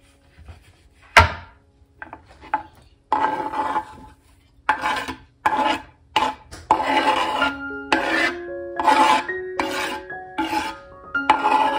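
A knife blade scraping across a wooden cutting board in repeated short strokes, sweeping chopped herbs and ginger into a bowl, starting about three seconds in. A single sharp knock comes about a second in.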